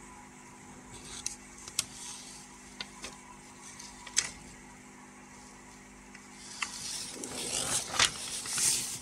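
A few scattered sharp clicks, then a couple of seconds of rustling and crackling near the end as a sheet of paper is handled.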